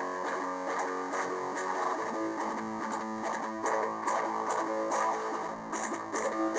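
Instrumental passage of a song: guitar chords ringing and changing, over a steady beat of sharp high ticks, with no singing.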